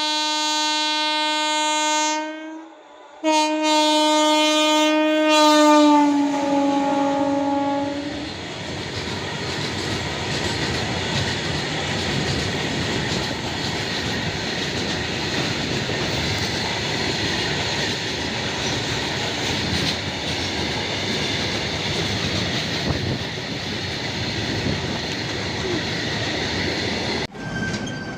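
Indian Railways WAG-5/WAG-7 electric freight locomotive air horn sounding two long blasts, the second dropping in pitch as the engine passes. Then the goods train's wagons roll past with a steady wheel-and-rail clatter for about twenty seconds, cut off abruptly near the end.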